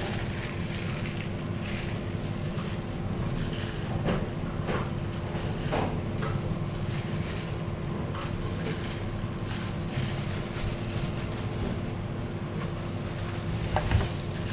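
Steady background hum and hiss, with a few soft knocks as pudding slices are moved about on a ceramic plate by a plastic-gloved hand, the loudest near the end.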